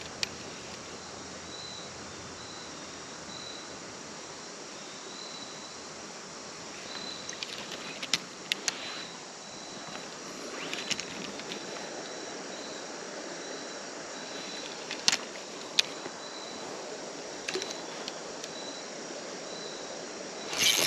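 Sharp clicks from a Lew's Mach Pearl spinning reel being worked as a spinner is cast and retrieved: a pair near the start, more around the middle and a few near the end. Under them runs a steady outdoor hiss, and during the first half a faint high chirp repeats about twice a second.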